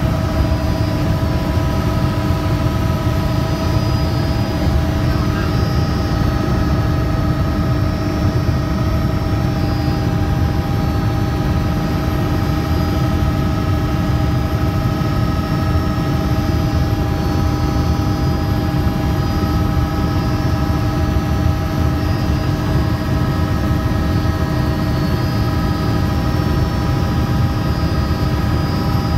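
Helicopter engine and rotor noise heard inside the cabin in flight: a loud, steady low rumble with several constant whining tones over it.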